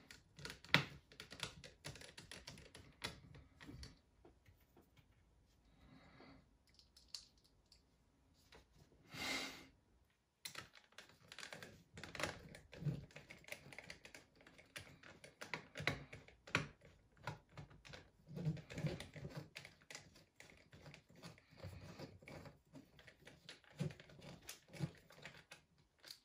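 Small screwdriver working the logic board screws of a 2011 MacBook Pro A1286: irregular small clicks, taps and scrapes of the tool against the screws and the laptop's case, with a brief louder rustle about nine seconds in.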